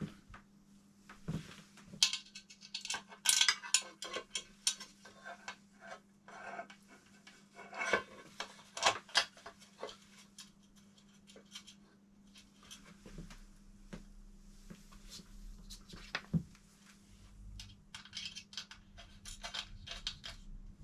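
Irregular clicks, knocks and short scrapes of a plastic motorcycle windshield being handled and fitted onto the front of the bike, with small hard clatters.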